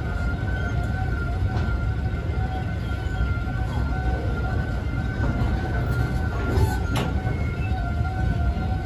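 Freight train container wagons rolling past: a steady rumble of steel wheels on the rails with a steady high-pitched squeal over it, and one sharp clack about seven seconds in.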